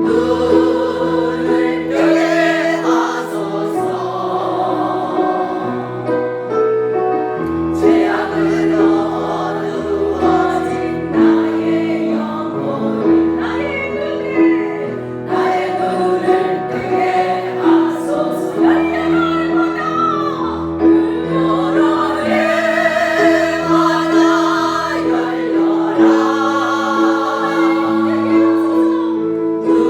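Christian praise song: sung voices, choir-like, over a held note and a bass line that changes every couple of seconds.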